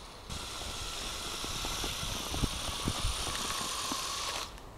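Electric Lego train motor and gears whining steadily as the locomotive pushes its plough through snow, with scattered low knocks. The whine starts abruptly about a quarter second in and drops away near the end.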